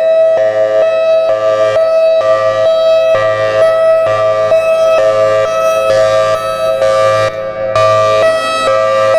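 Federal Signal Thunderbolt 1003 outdoor warning siren sounding its Hi-Lo signal: two steady pitches alternating about every three-quarters of a second. There is a brief dip in loudness about seven and a half seconds in.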